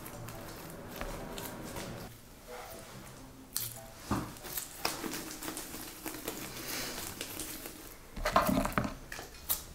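Slime being squeezed and kneaded by hand and stirred with a spatula in a glass bowl: quiet squishing with soft clicks and scrapes, and a louder burst about eight seconds in.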